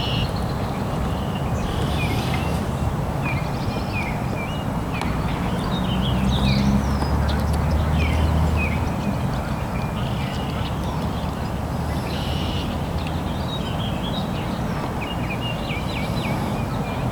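Birds calling in many short chirps over a steady low rumble. In the middle, a low engine hum from a passing motorboat swells and fades.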